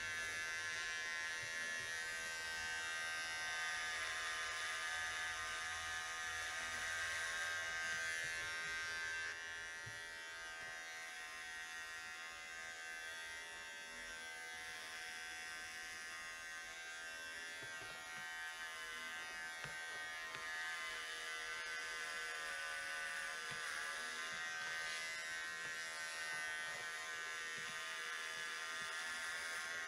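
Corded electric hair clipper buzzing steadily as it shaves hair off a scalp. The buzz drops a little in loudness about ten seconds in.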